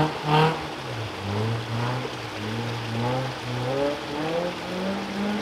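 Off-road 4WD engine climbing a rough trail, revving up and easing off again and again as the driver works the throttle.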